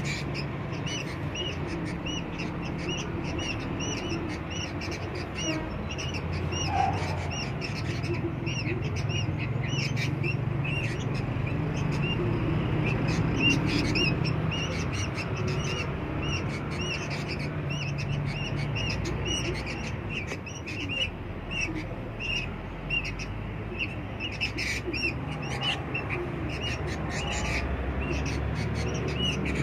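Sooty-headed bulbul chirping in a steady, even series of short notes, about two to three a second, over a low background rumble.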